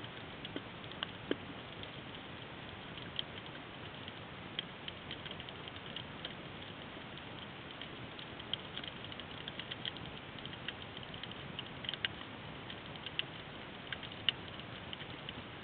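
Underwater ambience on a rocky reef: a steady hiss with many irregular sharp clicks and crackles.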